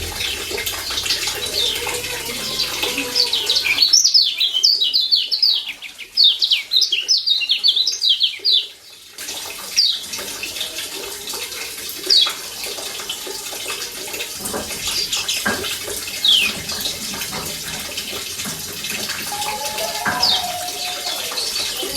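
Lombok yellow white-eye (kecial kuning) calling in quick short, high, falling chirps, packed closely for the first nine seconds or so. After that come single chirps every couple of seconds over a steady hiss.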